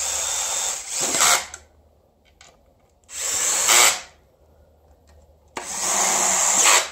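Cordless driver with a socket bit running in the bolts of an aluminium oil pan to snug them up, in three short runs of about a second each. Each run gets louder just before it stops, as the bolt seats.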